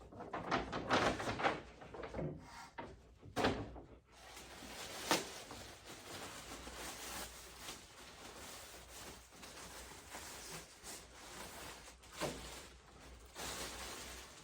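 Packaging crinkling and rustling as items are pulled out of it, busiest in the first few seconds, then softer and steady, with a few sharp knocks along the way.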